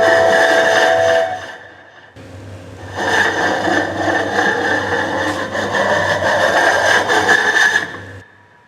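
Dense hissing, rumbling soundscape texture over a steady low hum. A cluster of held recorder notes dies away about a second in, the noise dips, then swells back about three seconds in and fades out near the end.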